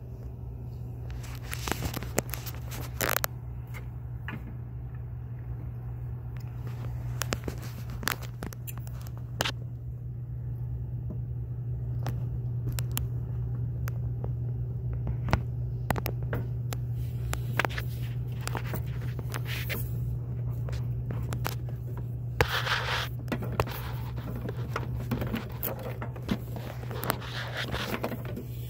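Steady low electrical hum from a Bunn WAVE15 commercial coffee brewer, a little louder in the middle. Scattered clicks and scrapes of handling run over it.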